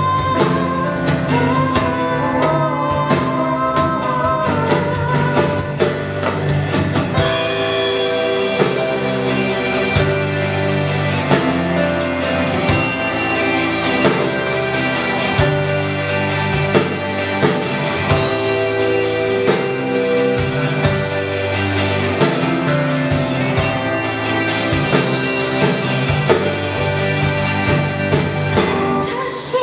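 Live rock band playing with drum kit and guitar, a voice singing over it in the first few seconds, and the band playing fuller and busier from about seven seconds in.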